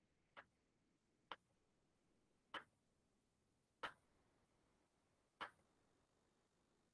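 Near silence broken by five faint, short clicks, unevenly spaced about a second or so apart.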